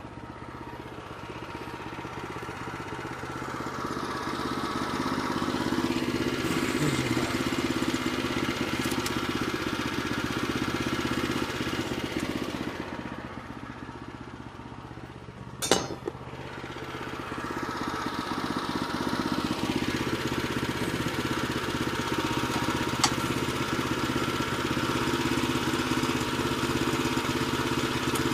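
Woodland Mills HM122 band sawmill's small gasoline engine running steadily, louder over two long stretches as the blade works through a jack pine log. A single sharp click comes about halfway through, where the sound briefly drops.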